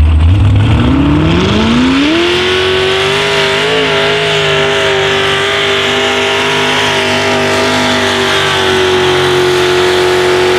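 Mud bog truck's engine revving up from idle as it launches, rising in pitch for about two seconds and then held at a high, steady pitch at full throttle as the truck runs through the mud pit.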